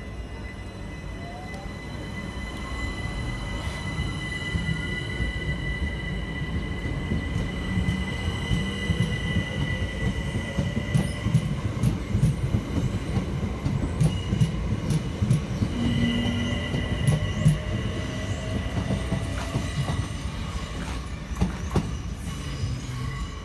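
Southeastern Class 376 Electrostar electric multiple unit pulling away: a faint rising whine as it accelerates, over a growing wheel-on-rail rumble with high steady squealing tones. About halfway through, the wheels start clicking sharply and irregularly over the rail joints and pointwork.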